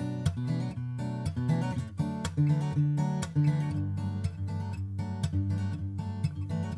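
Background music: a strummed and plucked acoustic guitar tune.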